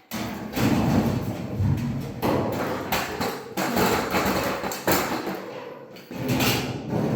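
Knocks, thumps and scraping of sheet-metal ductwork being handled and hung, with a brief lull about six seconds in.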